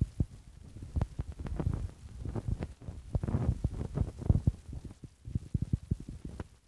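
Irregular low thuds and rumbling, with a few sharp clicks, from wind and handling knocking on the microphone. A quick run of thumps comes about five seconds in.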